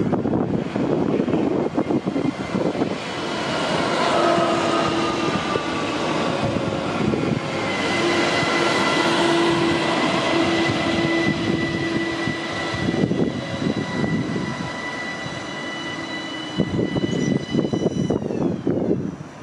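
Electric train running past, with whining tones from its drive that rise in pitch about four seconds in and then hold steady over the rumble of the wheels; near the end the whine shifts in pitch and rougher rumbling and clatter come in.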